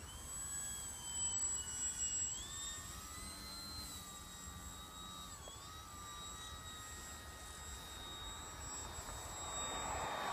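Electric motor and propeller of a Twisted Hobbys Turbo Crack Beaver RC foam plane whining in flight. The pitch steps up a couple of seconds in and dips briefly around the middle as the throttle changes.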